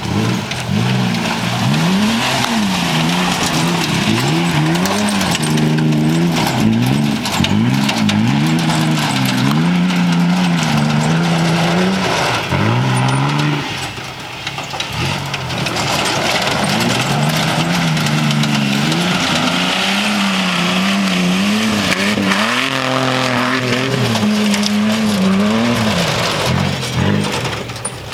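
1993 Ford Ranger's V6 engine revving hard and dropping back again and again as the two-wheel-drive pickup is thrown around on dirt, with the rear tires spinning and sliding.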